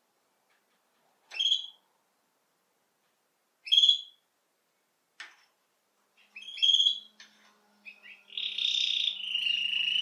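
Domestic canary (Belgian canary) giving short rising chirps a couple of seconds apart, three in all, then, about eight seconds in, breaking into continuous song that settles into a long steady note.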